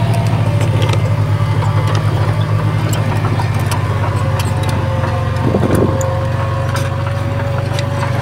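Diesel engine of a heavy construction machine running steadily close by, with a fast, even low pulse. Light clicks and knocks sound over it, and a brief extra noise comes about five and a half seconds in.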